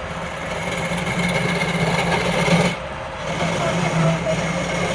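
Wood lathe running while a turning tool scrapes and cuts the spinning wood, with a steady hum and a high whine under the rasping noise. The cut eases off briefly just under three seconds in, then resumes.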